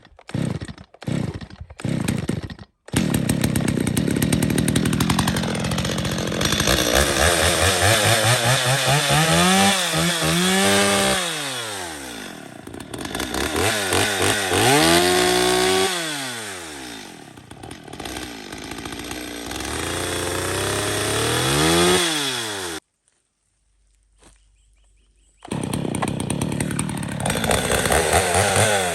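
Stihl 021 two-stroke chainsaw, dead cold after sitting about 18 months, being pull-started on half choke: a few quick tugs of the starter cord, then it fires about three seconds in and keeps running, revved up and down several times. It cuts off suddenly, and a couple of seconds later it is running again.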